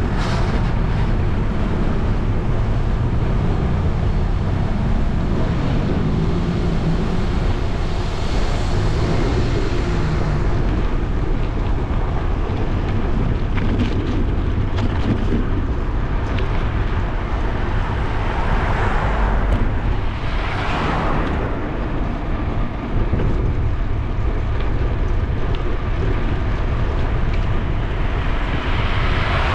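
Steady wind rumble on a bike-mounted camera's microphone while cycling, with cars passing on the adjacent road several times, each swelling and fading.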